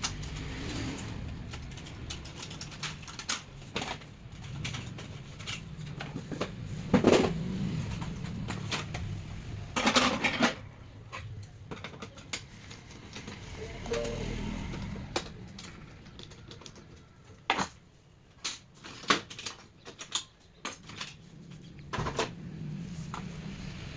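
Irregular clicks and knocks of an HP LaserJet M1005 laser printer's casing and parts being handled and pulled apart during disassembly, with louder clattering about seven and ten seconds in.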